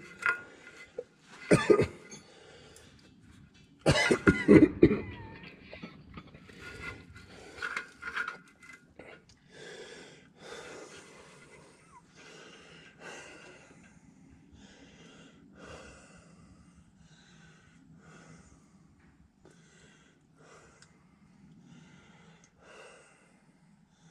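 A man coughing hard, about two seconds in and again about four seconds in, followed by a run of fainter short sounds about once a second that fade away.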